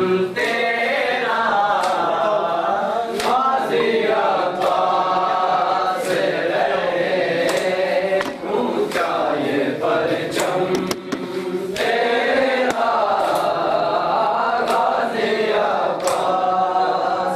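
A group of men chanting a noha (a Shia mourning lament) in chorus, the sung line rising and falling. Sharp slaps of hands on bare chests (matam) keep time about once a second.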